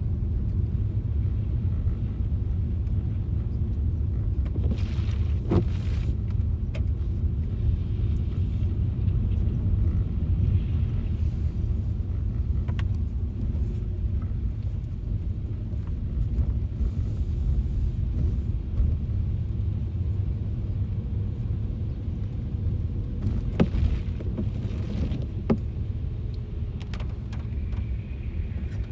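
Steady low rumble inside a moving car, driving on rain-soaked streets, with a few sharp ticks, the loudest about three-quarters of the way through.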